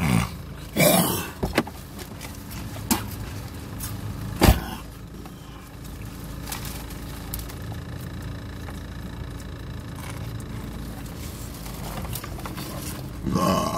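Steady low rumble inside a car, with rustling and a few sharp knocks from handling things about one second in and again, loudest, about four and a half seconds in.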